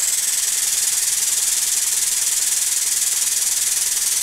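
Air-over-hydraulic long ram's air pump running with a steady, loud hiss of air, driving the ram up to raise the shop crane's boom.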